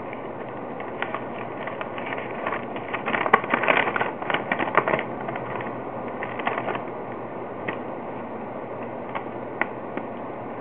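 Handling of packaging: scattered clicks, taps and crackles, a dense cluster of them about three to five seconds in, over a steady hiss.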